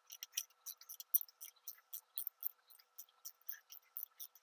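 Ratchet wrench clicking in quick, uneven runs of light clicks as a 9/16 bolt is tightened with a 7/32 Allen socket.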